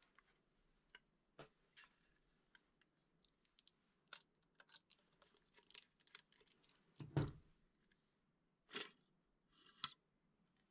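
Scattered light clicks and taps of metal parts and wood as an antique crank-cocked Kurbelspanner airgun's action is worked and taken out of its stock, with one heavier thump past the middle and two more knocks near the end.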